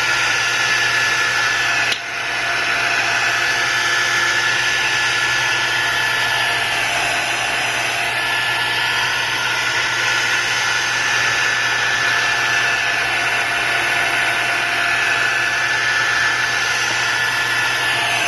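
Heat gun running steadily while it heats the edges of the glass: a rush of blown air with a constant whine, dipping briefly about two seconds in.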